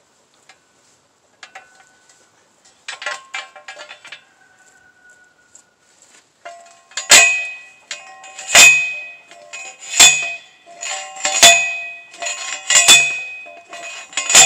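Hand post driver pounding a fence post: about halfway through, six metal strikes land roughly a second and a half apart, each one ringing. Before them, a light metallic rattle as the driver is set over the post.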